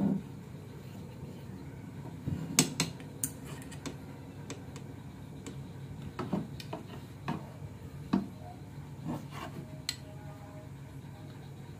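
Thin metal rod tapping and clinking against short metal tube pegs in a wooden frame: a scatter of light, irregular metallic clicks with a faint ring near the end.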